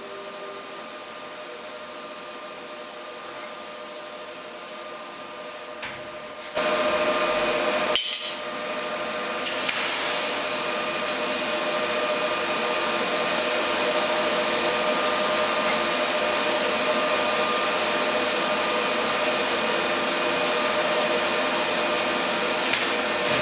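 Electric arc welding on a steel square-tube frame: a steady hissing crackle with a faint steady whine. It is quieter at first, then jumps much louder about six and a half seconds in and holds there.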